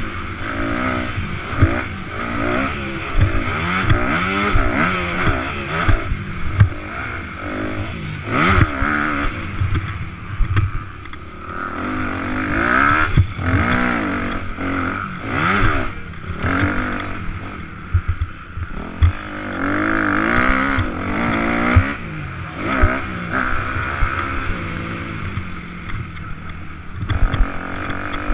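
Motocross bike's engine, heard from on board during a race, revving up and falling back over and over as the rider accelerates, shifts and rolls off through the track, with scattered sharp thumps from the bike.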